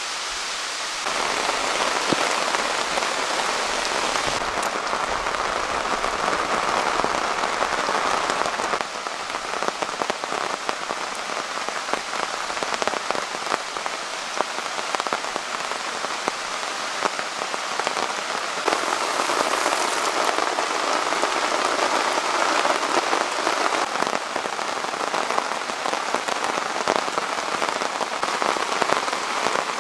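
Heavy rain falling in woodland: a steady hiss thick with individual drops ticking. It gets louder about a second in, eases a little near nine seconds and swells again around nineteen seconds.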